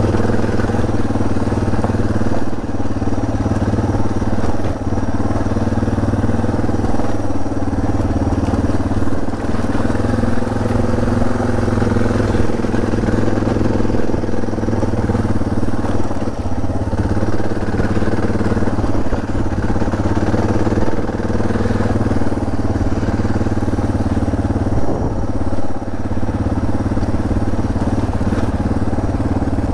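Suzuki DR650's single-cylinder four-stroke engine running steadily as the motorcycle is ridden.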